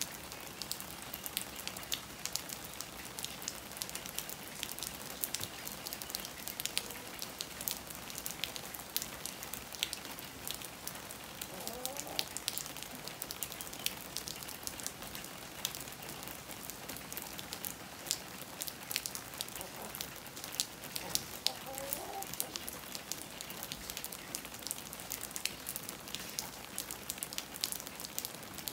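Steady rain falling, with a dense run of sharp drop ticks striking a hard wet surface close by.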